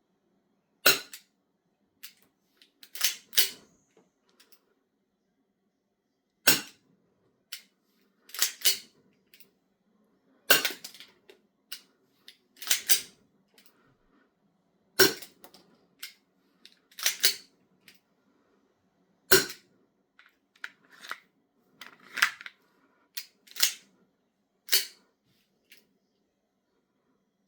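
Raven R9-4 gas blowback airsoft pistol (WE Gen 2 M9 system) in Hush Puppy configuration firing sharp single shots, each few seconds apart. Smaller mechanical clicks and paired clacks between the shots come from the slide, hammer and safety lever being worked by hand.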